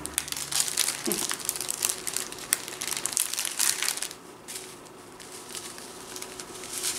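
Small plastic zip-lock bags of diamond painting drills crinkling as they are handled and sorted, thick for the first four seconds, then sparser.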